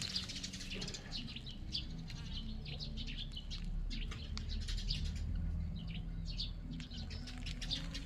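Birds chirping in many short high calls, over a steady low hum.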